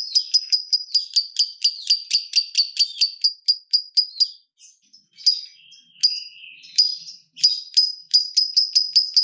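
Lovebird giving its 'ngetik' ticking call: a rapid run of sharp, high chirps, about five a second, that breaks off after about four seconds, then starts again more unevenly with some lower chattering before speeding up again near the end.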